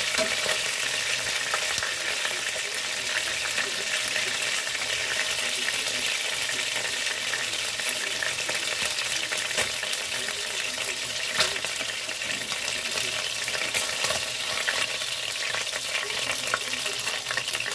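Tuna pieces frying in hot oil in a wok: a steady sizzle with crackling, spattering oil and scattered sharper pops, one louder click a little past the middle.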